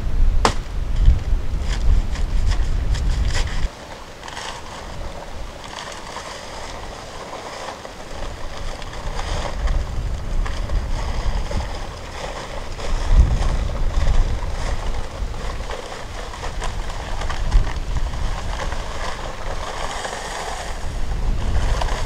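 Paper sack of Quikrete dry concrete mix slit with a large blade, two sharp clicks at the start, then the dry mix poured out of the sack with a steady rushing hiss. Wind gusts rumble on the microphone.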